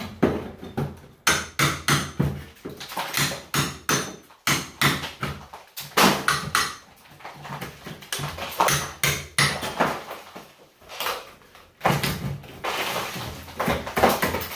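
Irregular knocks, cracks and scrapes of a hand tool breaking away cement board backed by diamond lath from a ceiling.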